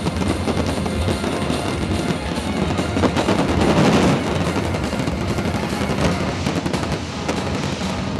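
A fireworks display in full barrage: a dense, rapid crackling and popping of many bursts at once, with show music still playing underneath.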